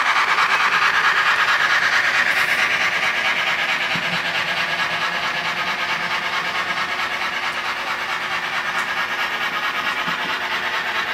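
HO scale model train rolling along the track: a steady, rapid metallic rattle of small wheels on rail that slowly fades.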